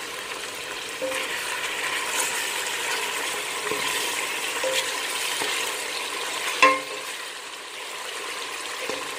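Chicken frying in hot oil with browned onions in a pot, sizzling steadily while it is stirred. The sizzle grows louder about a second in, and a spoon clanks sharply against the pot about two-thirds of the way through.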